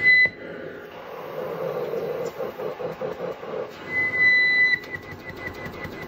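Mechanical cough assist machine pushing and pulling air through the tracheostomy tubing in its inhale–exhale cycle, the air flow fluttering through the middle. A high steady tone sounds briefly at the start and again about four seconds in, then breaks into quick pulses.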